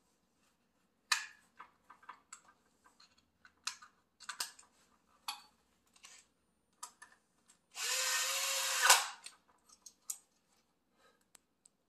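Cordless drill/driver runs for about a second, driving a screw into the miter saw's housing, and ends with a sharp click. Before it come light clicks and taps of small parts and tools being handled.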